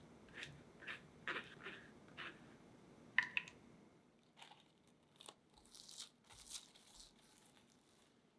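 Quiet kitchen handling noises while making crepes: several light clicks and taps, then a few short crinkly rustles about two-thirds of the way through.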